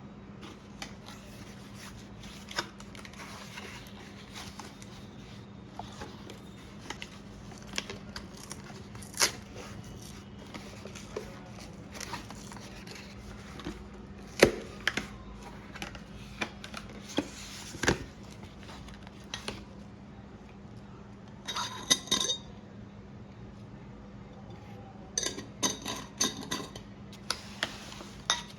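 Kitchenware being handled: scattered knocks and taps of utensils against dishes and pans, with a few ringing metallic clinks near the end. A steady low hum runs underneath.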